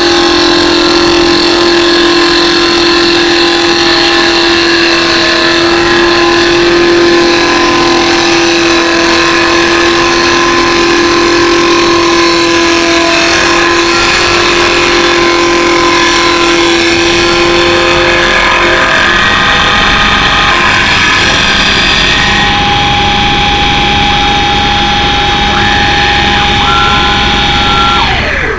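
Automatic CNC wood lathe running: a loud, steady machine whine of several held tones over a dense hiss. About two-thirds of the way through the tones change to a new set, and one tone drops in pitch right at the end.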